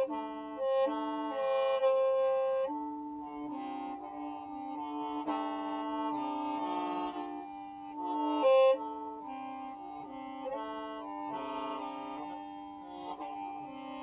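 Hmong qeej, a bamboo free-reed mouth organ, playing a melody of held notes, with several pipes sounding together and the notes changing every half second to a second.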